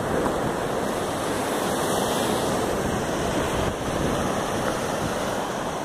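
Sea surf breaking and washing in over the rocks of a rocky shore, a steady rush of water, with wind on the microphone.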